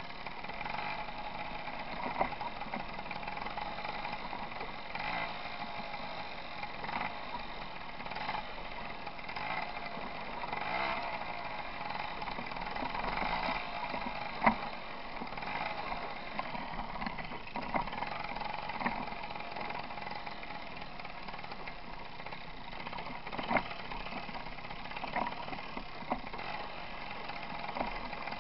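Tomos moped's small two-stroke engine running while riding over a gravel track. Its pitch wavers, and the bike knocks and rattles over bumps several times, most sharply about halfway through.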